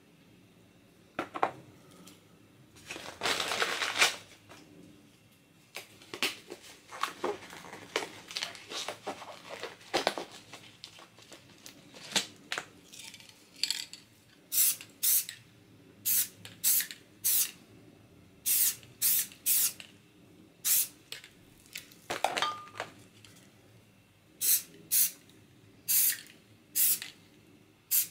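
Aerosol spray paint can hissing in short, repeated bursts, often in quick pairs, over the second half. Before that, knocks and clatter of items being handled, with a louder noisy rush about three to four seconds in.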